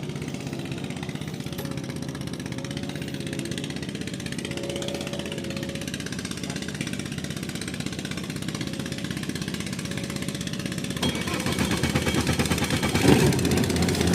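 OXE 200 diesel outboard engine running steadily, growing louder and rougher about eleven seconds in.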